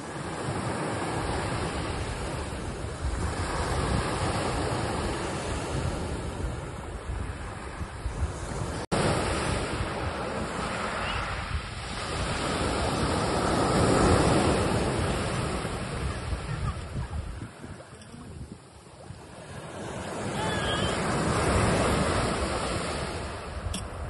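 Small waves washing in and draining back over a fine pebble beach, in slow surges of rushing water. Two surges stand out, one about halfway and one near the end.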